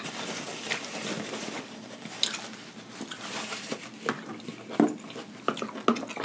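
Close-miked chewing of a mouthful of food, with scattered wet mouth clicks and smacks.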